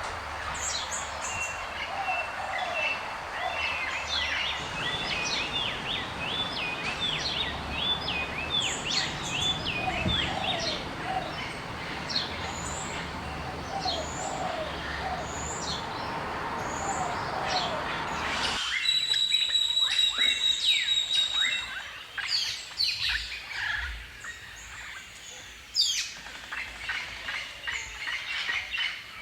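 Several birds calling and singing in short chirps and trills over a steady background hiss. A little past halfway the recording switches abruptly to a quieter background with higher chirps and a sustained whistled note.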